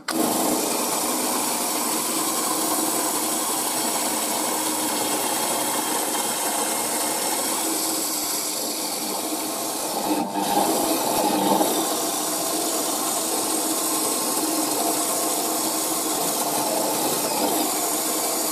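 Small Silverline benchtop bandsaw running and cutting through wood, a steady sound that gets briefly louder about ten seconds in.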